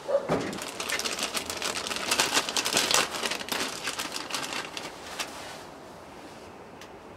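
Hand tools and parts being handled during motorcycle engine work: a knock, then several seconds of rapid, irregular clicking and rattling that fades out.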